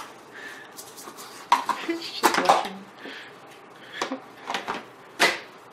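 Kitchen clatter: a handful of sharp knocks and clinks of dishes and kitchen items being handled on a counter, spaced out over a few seconds.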